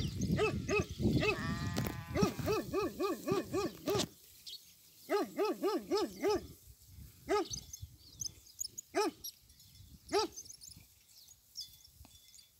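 Maremma sheepdog barking, first in quick runs of about four barks a second, then in single barks a second or more apart that die away near the end.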